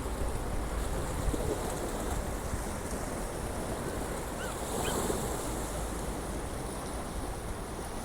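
Sea waves washing, with wind buffeting the microphone; a wave swells and breaks about halfway through.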